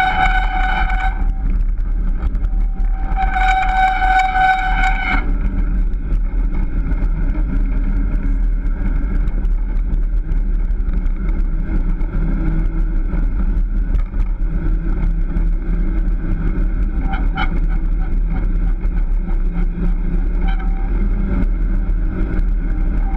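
Steady rumble and rolling noise of a wheeled dog-mushing rig running on a paved road. A high, steady squeal sounds twice in the first five seconds, the second time for about two seconds.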